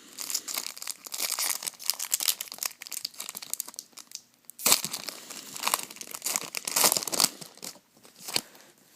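Foil trading card pack wrapper being torn open and crinkled by hand, in two bouts of dense crackling, with a short click near the end.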